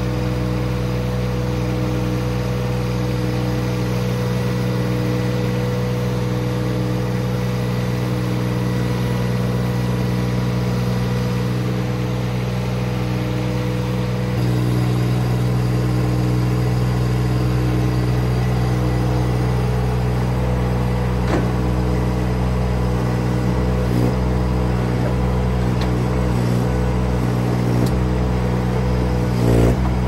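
Baumalight TRL620D mini skid steer's diesel engine running steadily, stepping up louder about halfway through as the machine is worked. Several short knocks come in the latter part.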